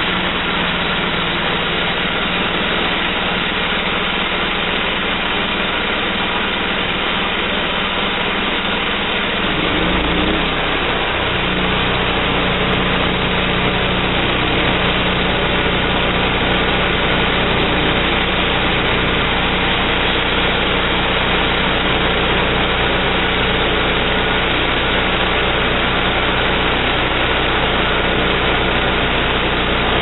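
The 11-horsepower gas engine of a homemade band sawmill running; about ten seconds in it speeds up and gets fuller, then runs steadily as the band blade cuts into a wooden slab.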